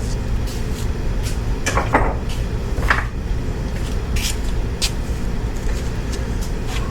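Clunks, clicks and knocks of motorcycle parts and tools being moved around and set down, the loudest about two and three seconds in, over a steady low hum.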